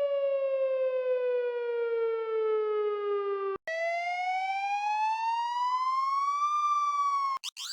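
Digitally altered police siren sound effects, one slow wail after another. A tone falls slowly for about three and a half seconds and cuts off. A new variation then rises steadily for about three seconds, dips slightly and cuts off, and a third starts sweeping sharply up at the very end.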